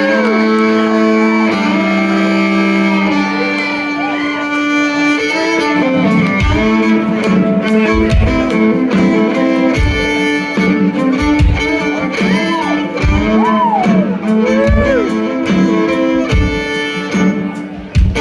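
Live country band playing instrumental music, a fiddle with sliding notes over held guitar chords, with a low drum beat coming in about six seconds in.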